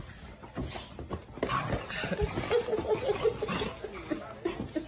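A person chuckling and laughing, building about a second and a half in into a run of quick, short laughs.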